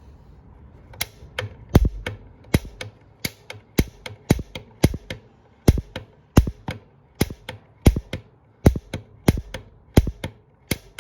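Water heater pilot's piezo igniter clicking over and over, about two sharp clicks a second, while air purges from the gas line and the pilot has not yet lit.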